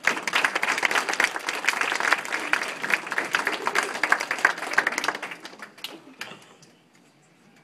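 Audience applauding: dense clapping for about five seconds that thins out and dies away about six seconds in.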